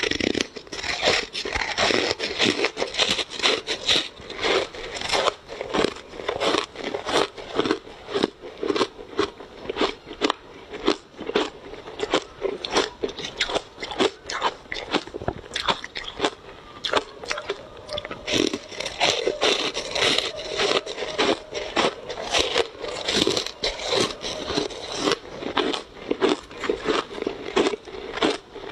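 Close-up crunching of ice being bitten and chewed: dense, sharp crunches, several a second, with no pause.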